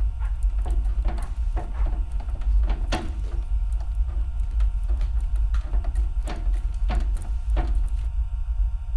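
A deep, steady low rumble, with scattered faint knocks and clicks over it until about eight seconds in.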